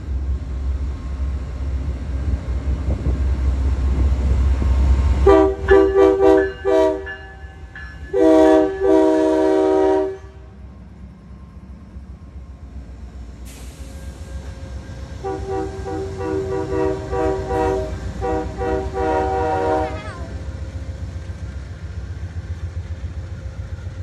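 Amtrak GE P42DC diesel locomotives rumbling past as the train's air horn sounds: a quick run of short blasts about five seconds in, two longer blasts about eight seconds in, and another stretch of horn from about fifteen to twenty seconds in. After that only the low rumble of the passing train remains.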